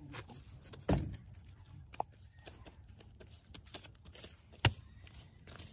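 Scattered light clicks and knocks, with a sharp knock about a second in and another near the end.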